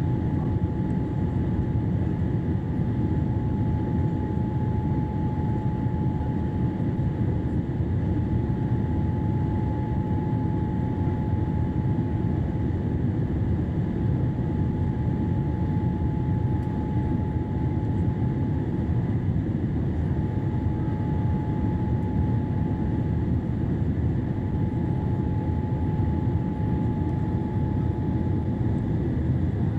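Cabin noise inside a Boeing 787 on its landing approach: a steady low rumble of engines and airflow. A thin steady whine sits above it and drops out briefly about two-thirds of the way through.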